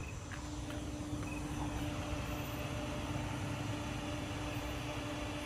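A car's engine running steadily with a low rumble and a held hum, growing slightly louder about two seconds in.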